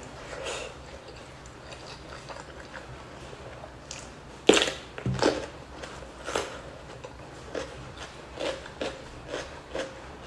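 Close-up eating of crunchy food: soft chewing, then a loud crisp bite about four and a half seconds in, followed by a few more crunches and steady crunching chews about two or three a second near the end.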